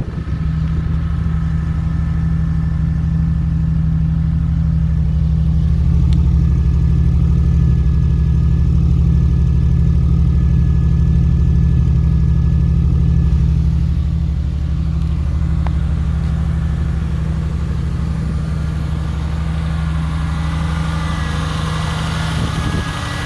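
Fuel-injected GM LS V8 in a 1956 Chevrolet Suburban idling steadily with a throaty exhaust note through a single Magnaflow muffler and Y-pipe; it runs a little louder for several seconds in the middle, then settles back.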